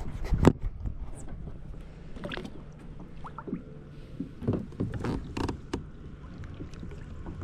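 Scattered knocks, clicks and creaks of gear being handled against the hull of a small paddle craft, with a low rumble of water or wind underneath. One sharp knock about half a second in is the loudest.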